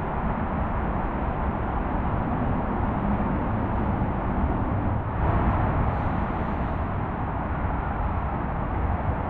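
Steady outdoor background noise: an even rumble and hiss with no distinct events.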